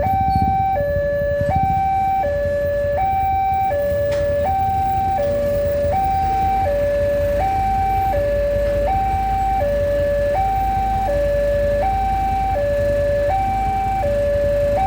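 Electronic two-tone warning alarm of a railway level crossing, sounding steadily, alternating between a lower and a higher tone about every three-quarters of a second. It signals that a train is approaching and the barriers are down. A low rumble runs underneath.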